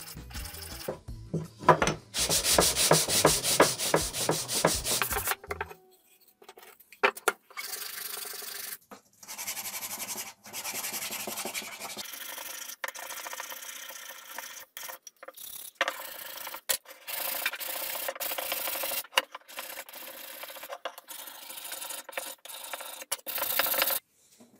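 Hand sanding and filing of bandsaw-cut wood. Quick back-and-forth rubbing strokes of abrasive over the curved wooden edges come first. After a brief pause, a flat metal hand file rasps over the wood in runs of strokes.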